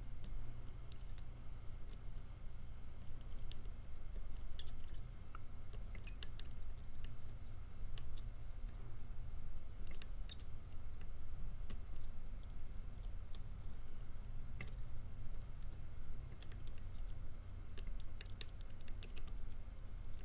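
Irregular small metallic clicks and ticks from a tubular lock and its pick being handled and turned, over a steady low hum.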